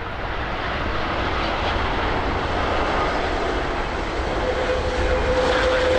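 Jet engines of an arriving Airbus A330-343 (Rolls-Royce Trent 700s) running: a steady rush of noise that grows slightly louder, with a steady whine coming in about four seconds in.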